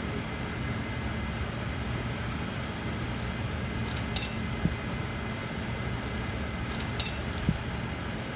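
Steady low background rumble with a faint hum, broken by two short, sharp ringing clinks about three seconds apart, each followed by a soft knock.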